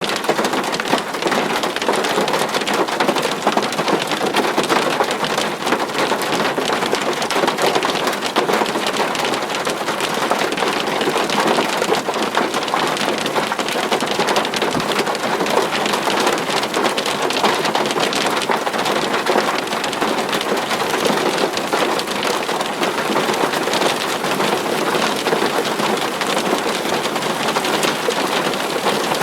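Rain falling hard and striking a hard surface: a steady, dense patter made of countless tiny individual hits.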